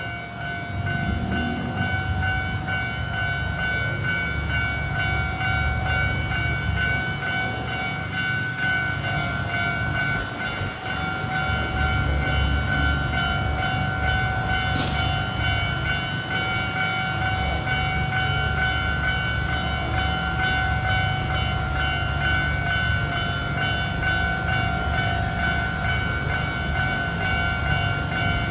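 A railway level crossing's warning bell ringing steadily while a non-stopping train runs over the crossing with a heavy low rumble. The rumble builds about a second in and grows stronger about halfway through.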